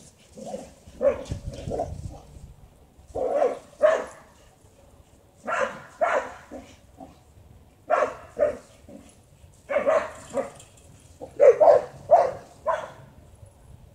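A dog barking over and over, mostly two barks at a time, a pair about every two seconds.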